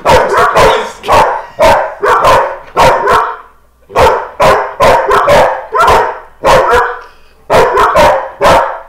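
Dogs barking in a fast, loud run of sharp barks, about two a second, with two short breaks.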